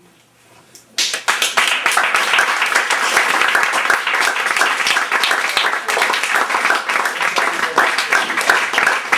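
Audience applause with cheering, breaking out suddenly about a second in after a brief hush and carrying on steadily.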